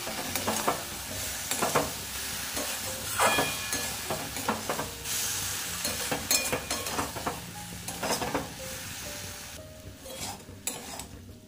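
Okra sizzling in a metal kadai as its spice paste is fried down, with a metal spatula stirring and scraping the pan every second or two. The sizzle fades toward the end.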